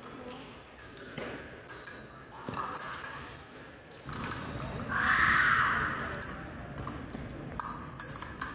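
Fencing blades clinking against each other, with sharp taps of footwork, and a louder, longer noise about five seconds in.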